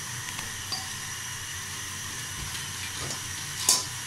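Sauce simmering in a pan on the stove with a steady hiss, a few faint clicks, and one short sharp noise near the end as the cooked spaghetti goes in.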